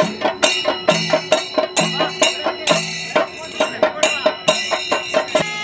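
Traditional temple percussion music with a steady beat: drum strokes and ringing metal cymbals or bells, about two and a half strikes a second, with a low held tone that comes and goes.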